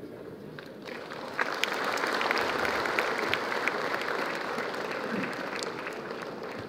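Audience applauding: many people clapping, building up about a second in and then slowly easing off.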